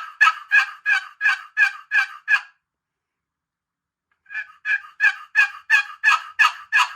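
Box turkey call run as a hen yelp: the paddle drawn across the sound chamber in short two-note calls, about three a second. The first series stops about two and a half seconds in, and a second series starts after a pause of under two seconds.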